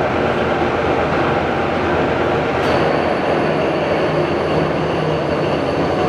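Monarch Model 613 toolroom lathe running under power with its spindle at speed, a steady loud gearhead running noise. About two and a half seconds in, a thin high whine joins it and holds.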